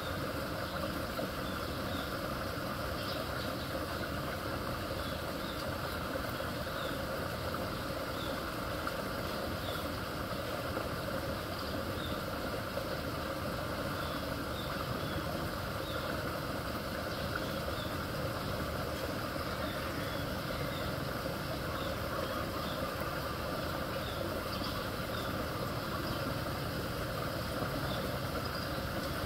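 Floodwater rushing steadily through a small concrete culvert pipe under a sidewalk, a constant even wash of water noise, with faint short chirps over it.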